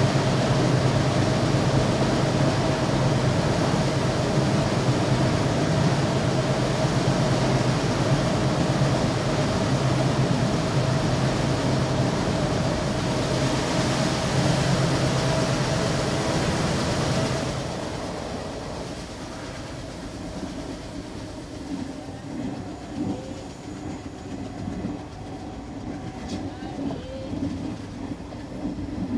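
Passenger train running, heard from inside a coach: a loud, steady rumble and hum of wheels and carriage while it passes through a dark tunnel, dropping off sharply a little after halfway as it comes out into the open. After that, quieter rattling and clatter of the wheels on the track.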